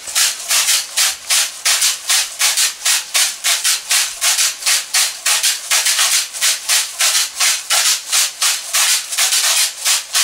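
A pair of hand-made Igbo seed shakers, gourd-shaped rattles filled with ugboboko seeds, shaken in a fast, steady rhythm of about four to five strokes a second, the seeds giving a bright swishing rattle.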